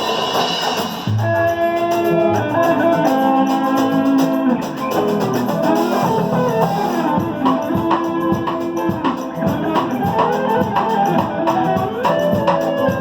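Music: held melody notes over a steady drum beat.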